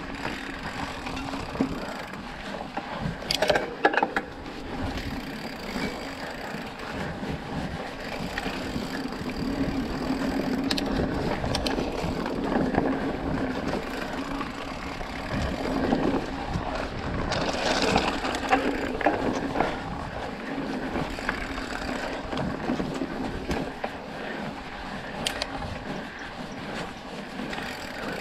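Hardtail mountain bike (2020 Trek Procaliber 9.6) ridden along a narrow dirt singletrack: its 29-inch Maxxis tyres rolling over the dirt and the bike rattling over bumps, with undergrowth brushing past. A few sharper knocks come about three to four seconds in.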